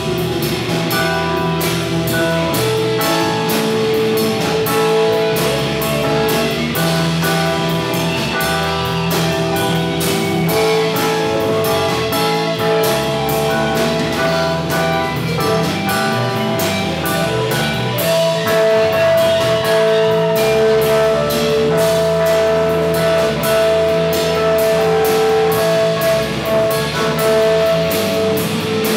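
Live rock band playing an instrumental passage: drum kit with steady, rapid cymbal strokes under bass guitar, with long held melodic notes over the top.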